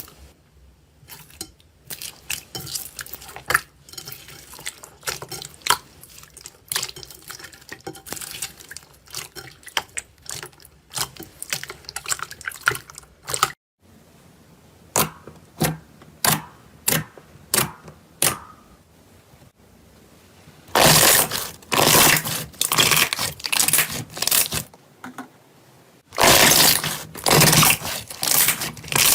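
Slime being squeezed and poked by hand: a run of sticky clicks and wet pops, then two louder stretches of dense crackling in the last third.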